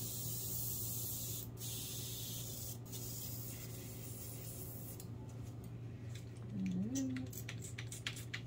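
Airgel (Airtex) nail airbrush spraying paint in a steady hiss, broken twice by brief gaps, then stopping about five seconds in. A few light clicks follow.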